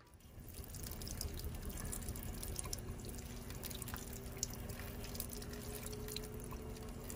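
Thin stream of tap water running into a sink and over a halved leek as it is rinsed clean of sand, steady with small splashes and drips.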